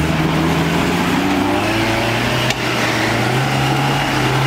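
Toyota Land Cruiser's engine pulling under load as it climbs a steep dirt bank, revs held fairly steady, with one sharp knock about two and a half seconds in.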